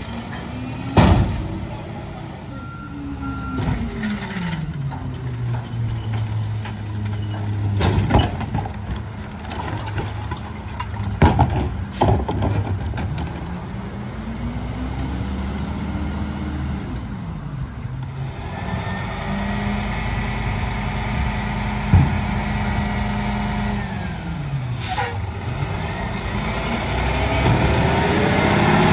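Rear-loader garbage truck's diesel engine revving up and down in pitch as it pulls away and slows between stops, then held at steady revs for several seconds in the second half. Loud bangs of recycling bins knocked against the hopper break in several times, with an air-brake hiss near the end.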